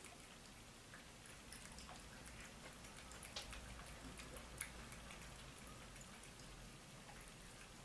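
Domestic cat lapping water from a bowl: faint, irregular wet ticks and drips.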